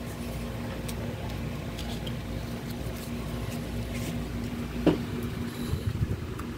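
Steady low background rumble with a constant faint hum, and one short pitched sound about five seconds in.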